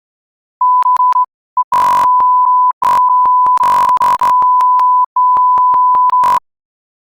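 Electronic beep tone at one steady pitch, switched on and off in uneven short and long stretches, with clicks where it cuts in and out.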